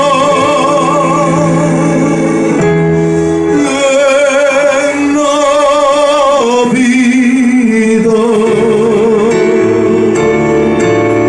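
A man sings a slow Christmas carol (villancico) into a microphone, holding long notes with a wide vibrato, over sustained chords from a Korg electronic keyboard. A light ticking beat comes in near the end.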